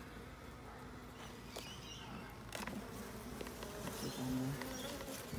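Honeybees buzzing steadily at an open hive, one buzz briefly louder about four seconds in, with a few light knocks of wooden hive frames being handled.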